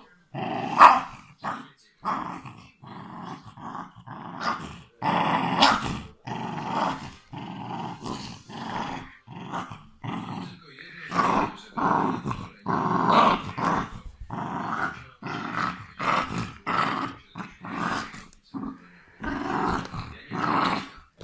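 West Highland White Terrier growling in short bursts one after another, with a rubber toy clamped in its mouth, guarding the toy from a reaching hand.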